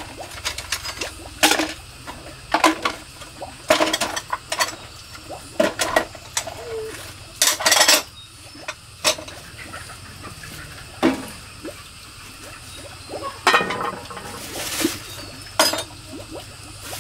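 Kitchenware being handled and set down on a wire dish rack and in a plastic basket: a frying pan and dishes knocking and clinking at irregular intervals, with a couple of longer clattering stretches.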